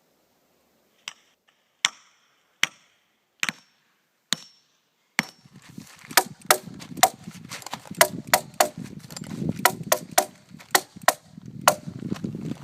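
Hammer striking nails in a 2x4: single sharp knocks about a second apart, some with a brief metallic ring, then from about five seconds in a quicker run of louder strikes over a low rumble.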